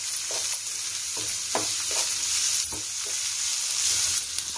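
Diced carrot, capsicum, sweet corn and onion sizzling in oil in a non-stick frying pan, stirred with a wooden spatula whose strokes scrape and tap the pan every half second or so. The vegetables are being half-cooked.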